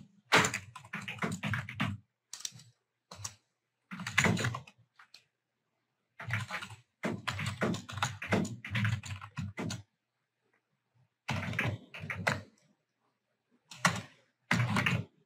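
Typing on a computer keyboard: several bursts of quick keystrokes with short pauses between them as a text message is entered.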